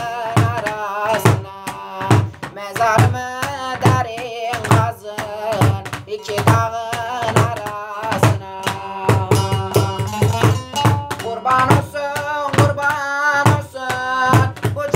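A bağlama (long-necked saz) played while a young man sings a Turkish folk song, with percussion beaten with a stick keeping time at about two beats a second. A quick run of beats comes about two-thirds of the way through.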